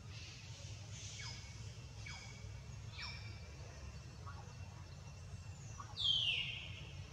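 High-pitched animal calls: short chirps falling in pitch about once a second, then a louder, longer call sweeping down about six seconds in, over a steady low rumble.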